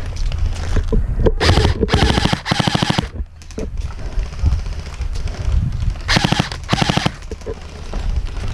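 Airsoft electric gun firing full-auto bursts, each a fast rattle of shots: three back-to-back bursts about a second in, then two more about six seconds in.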